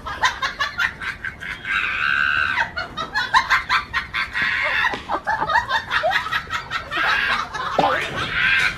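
Chicken clucking and squawking agitatedly in rapid short calls, with two longer harsh squawks: one about two seconds in and one near the end.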